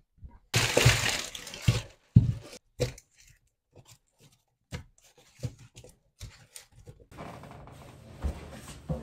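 A series of knocks, clatters and crunchy handling noises, loudest in the first two seconds. A steady low hum starts about seven seconds in.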